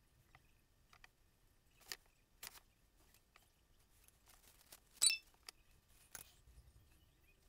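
Faint handling sounds at a work desk: a few short, sharp clicks and taps, the loudest about five seconds in, as painting tools are picked up and set down.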